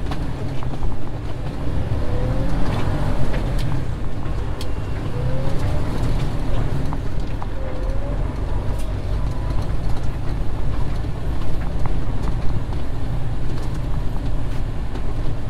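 Semi-truck engine running low and steady as the truck rolls slowly across a gravel yard, heard from inside the cab, with tyre noise on the gravel.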